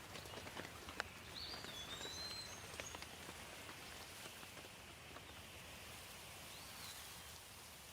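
Faint light rain: a steady hiss with scattered single drops landing, and a few short bird chirps, one run of chirps about one and a half seconds in and another near seven seconds.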